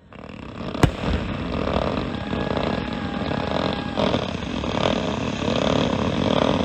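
Fireworks finale: a sharp bang about a second in, then a dense, continuous run of booms and crackling bursts. A held tone sounds over it from about two to four seconds in.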